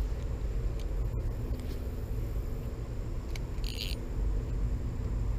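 Steady low rumbling background noise on the river bank, with a short hiss about three and a half seconds in as an ultralight spinning rod is cast and the line runs off the reel.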